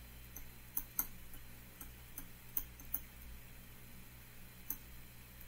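Light, irregular clicks and taps of a stylus on a tablet screen during handwriting, about ten in a few seconds, over a faint low hum.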